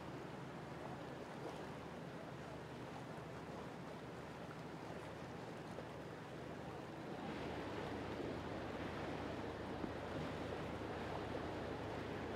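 A boat's engine humming low and steady over the wash of water and waves, growing louder about seven seconds in.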